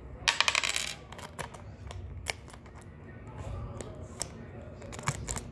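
A quick burst of rattling clicks lasting about half a second, then a few scattered clicks: small hard objects handled right at the phone's microphone.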